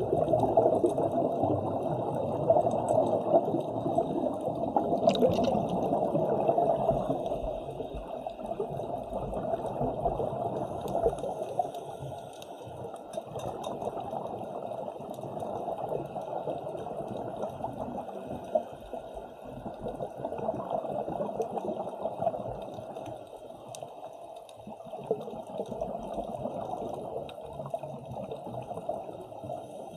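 Water sloshing and bubbling as a muffled, uneven rushing noise that swells and ebbs.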